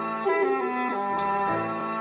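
Instrumental background music: held chords with a short melodic phrase moving over them in the first second.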